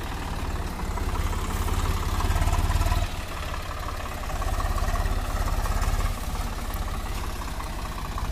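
Swaraj 744 FE tractor's three-cylinder diesel engine under load as it pulls a loaded trolley through mud. It runs with a low, even chugging that grows louder twice, about a second in and again past the middle, then eases back.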